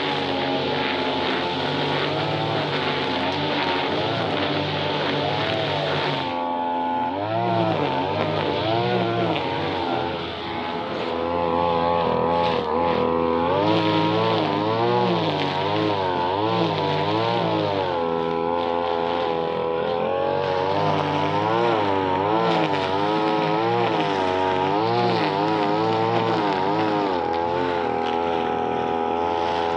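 Brush cutter engine running, steady at first, then from about six seconds in its pitch rises and falls over and over as the throttle and cutting load change.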